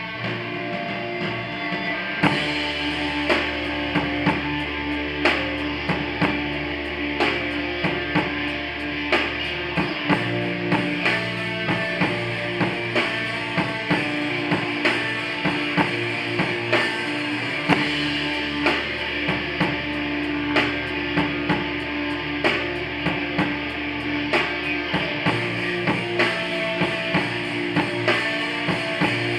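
Crust punk band playing live: electric guitar, bass guitar and drum kit. The guitar is heard alone at first, and the drums and bass come in about two seconds in with evenly spaced, unhurried hits.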